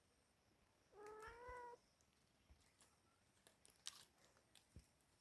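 A cat up a tree meowing once, a single call of under a second that rises slightly in pitch.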